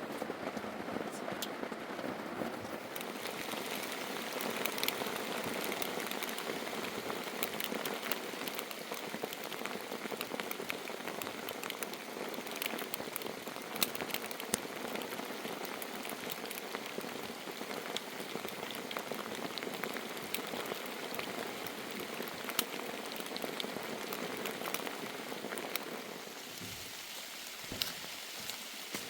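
Steady rain falling, with many single drops ticking sharply on surfaces. It eases slightly near the end.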